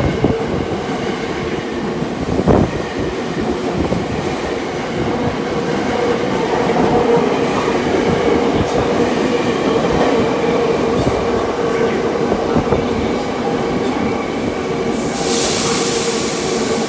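Eidan (Tokyo Metro) 8000 series subway train accelerating out of an underground station, its traction motors giving a steady hum over the rumble and clatter of wheels on rail joints as it runs off into the tunnel. A sharp knock comes about two and a half seconds in, and a loud hiss comes in near the end.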